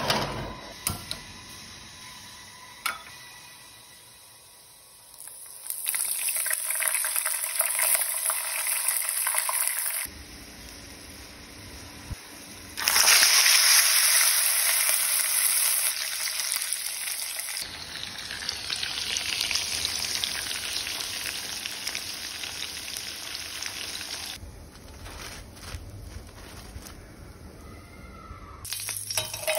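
Pork and oil sizzling and bubbling in a frying pan over a portable gas camping stove. The frying comes in several stretches that start and stop abruptly and is loudest about 13 to 16 seconds in. A few sharp clicks near the start come as the stove is being lit.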